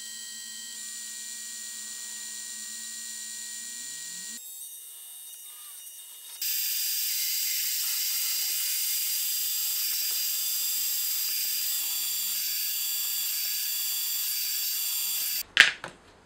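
Benchtop milling machine's spindle motor running with a steady hum. After a brief drop, it runs with a louder, steady high-pitched whine as a small hole is drilled into an aluminium block. The whine cuts off near the end, followed by a couple of sharp clicks.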